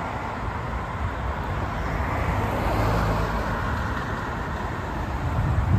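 Cars passing on the road: tyre and engine noise swelling as a car goes by about two to three seconds in, then easing off. A short, loud low rumble comes near the end.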